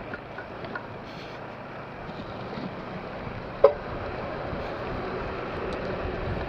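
Single-cylinder Honda Click 125i scooter engine running steadily at low speed over a rough dirt road, with wind on the microphone. A single sharp click about three and a half seconds in.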